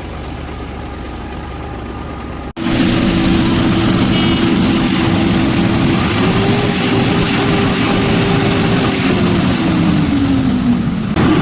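Ashok Leyland BS6 concrete pump truck's diesel engine running steadily, in a truck that does not respond to the accelerator, a fault the uploader puts down to the kilometre (speed) sensor. The sound breaks off for an instant about two and a half seconds in and comes back louder; its pitch rises a little about six seconds in and sinks back near the end.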